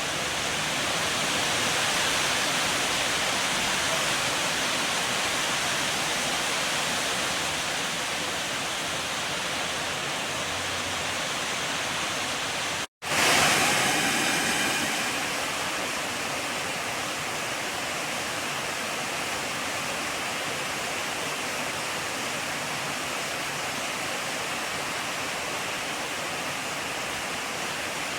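Heavy rain shower pouring down in a dense, steady hiss. About thirteen seconds in it cuts out for an instant and comes back slightly louder.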